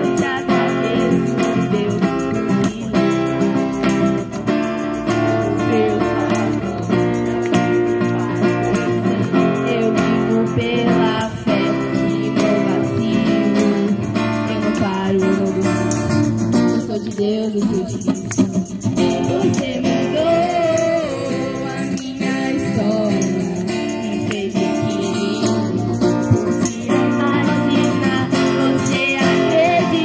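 A woman singing a Christian worship song through a microphone and portable loudspeaker, accompanied by a strummed acoustic guitar and a steadily shaken tambourine.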